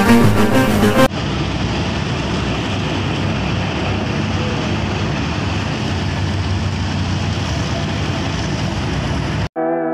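Steady mechanical running noise with a hiss and a low hum. Music stops about a second in and comes back abruptly near the end.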